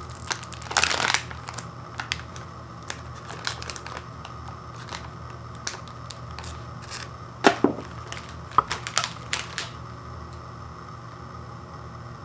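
Plastic cookie package crinkling and crackling under the fingers as its reclosable film is handled, in scattered bursts that are loudest about a second in and again from about seven and a half to nine and a half seconds.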